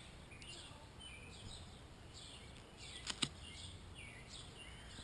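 Faint high chirping from a bird or insect, a short curved call repeated about twice a second over a background hiss. Two sharp clicks come close together a little after three seconds in.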